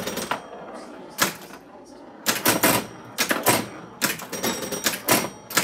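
Electromechanical clatter of a 1953 Williams Times Square woodrail pinball machine in play: sharp clacks from its bumpers, flippers and scoring mechanisms, some with a brief metallic ring, coming in irregular bursts.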